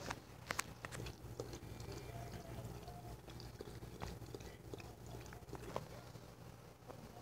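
A dog licking, heard as faint, irregular wet clicks and smacks of the tongue.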